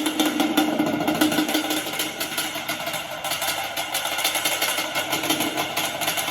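Yamaha Banshee's twin-cylinder two-stroke engine running with a rapid, steady firing rattle.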